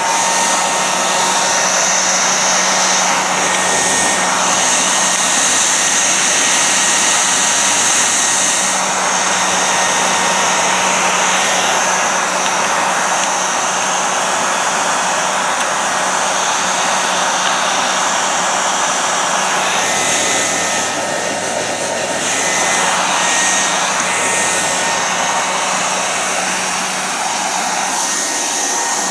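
Krups Quickair 600 bonnet hair dryer running, a steady loud whirring rush of blown air with a low motor hum. The tone shifts slightly a few times.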